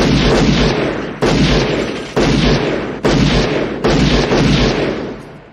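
Five loud handgun shots fired about a second apart, each ending in a long echoing tail. These are film sound effects.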